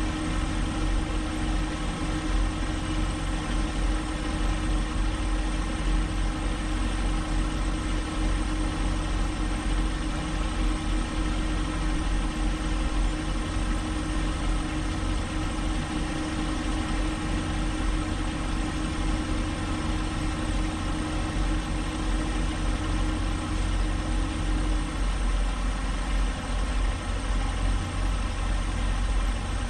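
Semi truck's diesel engine idling steadily, heard from inside the cab, with a steady higher hum that cuts off about 25 seconds in.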